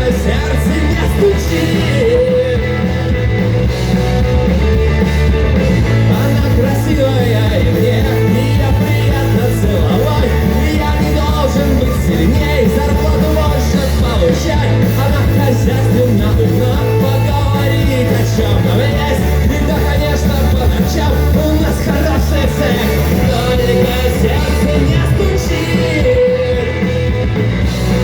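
Rock song with sung vocals, playing loud and steady.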